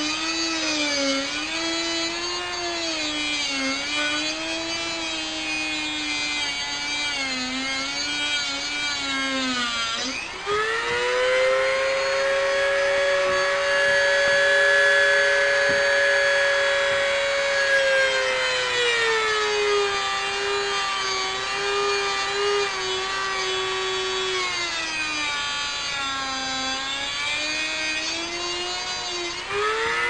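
Hardwired Dremel-type rotary tool, with no speed control, grinding through a metal motor shaft with a small grinding wheel. The motor's whine sags and wavers in pitch while the wheel is pressed in. From about ten seconds in it runs higher and steadier for several seconds, then sags again, and it climbs once more near the end.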